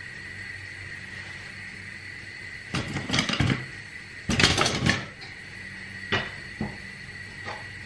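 Kitchen clatter in two short bursts about three and four and a half seconds in as a wooden spatula is picked up, then a few light taps of the wooden spatula against a frying pan of cooking meat.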